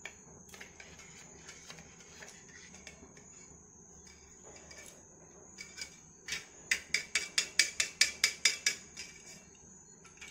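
A metal spoon stirring milk in a steel tumbler, clinking against the inside of the glass. It ticks faintly at first, then about six seconds in comes a quick run of loud, ringing clinks, about six a second, lasting nearly three seconds.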